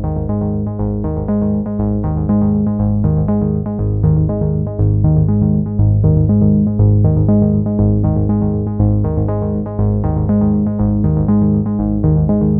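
Instrumental background music with sustained notes changing over a steady pulse.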